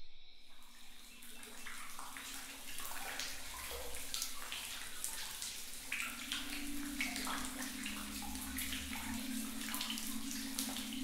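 Raw octopus tentacles making wet squelching and sucking pops, many small irregular smacks, over a steady low hum that grows louder about six seconds in.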